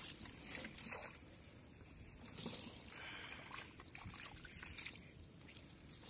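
Hands groping through shallow muddy water, giving small splashes, sloshes and trickles at irregular moments.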